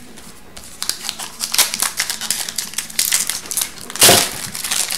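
Foil wrapper of an Upper Deck Series 2 hockey card pack crinkling as it is handled and torn open by hand, loudest about four seconds in.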